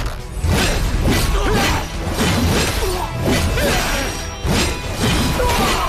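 Dramatic score with repeated crashing, shattering impact effects over it.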